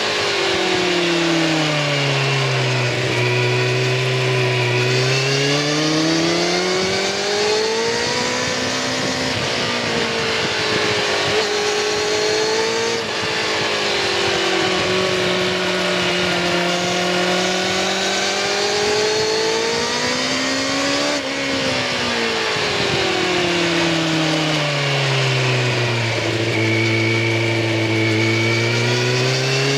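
Kawasaki Ninja ZX-6R 636's inline-four engine through its stock exhaust, heard close to the silencer while riding. The engine note falls as the bike slows and rises again as it accelerates, several times over, with a sudden break in pitch about two-thirds of the way through.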